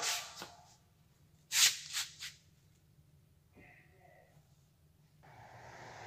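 Three short rushing noises about one and a half to two seconds in. Then, about five seconds in, a poultry-house ventilation blower switches on and runs with a steady low hum and rushing air.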